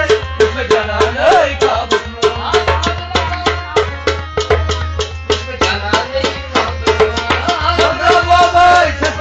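Live Kashmiri folk music: quick, steady hand-drum strokes under a held melody and a voice, with a steady low hum beneath.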